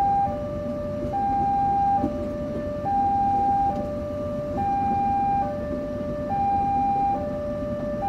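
Railway level-crossing warning alarm sounding a repeating two-tone high–low signal, each tone lasting just under a second. Under it runs a low rumble from the passenger train's coaches passing over the crossing.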